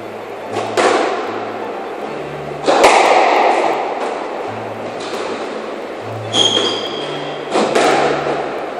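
Squash ball struck with rackets and hitting the court walls during a rally: about five sharp, echoing smacks, the loudest about three seconds in.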